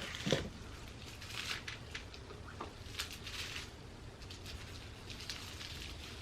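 Soft rustling with a few light clicks and taps from small items being handled, such as candle jars being set down and picked up.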